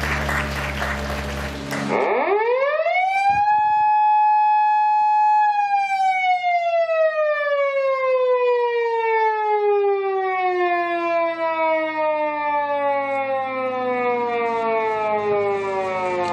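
Band music and applause stop about two seconds in. The Nissan GT-R police car's siren then gives one long wail: it rises quickly, holds for about two seconds, then falls slowly through the rest.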